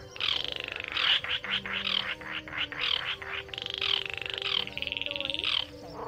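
Baillon's crake (cuốc lùn) calling: a dry, rapid rattling trill given in runs of about a second each, repeated several times with short breaks between.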